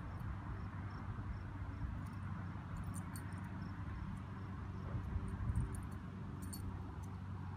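Open-air ambience: a steady low rumble with faint, evenly spaced high chirps about two a second and a few brief high clicks.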